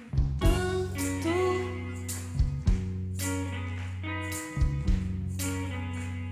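A band playing an instrumental passage of a slow pop ballad: guitar lines over long held bass notes, with a sharp hit every couple of seconds.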